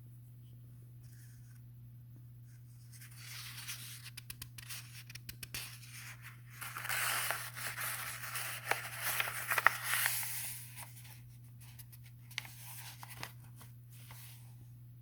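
Paper rustling and scratching with many small clicks, as of a book or its pages being handled. It builds about three seconds in, is loudest in the middle and dies away a few seconds before the end, over a low steady hum.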